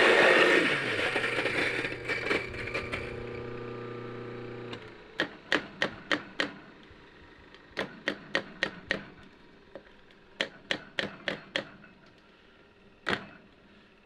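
Mahlkönig EK43 coffee grinder motor running as it grinds, stopping about five seconds in. Then come three quick runs of about five sharp taps each, knocking the last retained grounds out of the grinder's spout into the dosing cup, and one more tap near the end.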